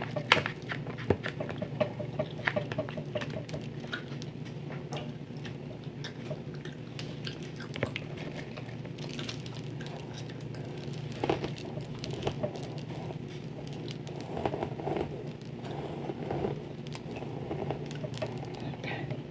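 Close-miked bangles jangling and clicking with each hand movement while hair is combed and pressed with a flat iron, over a steady low hum.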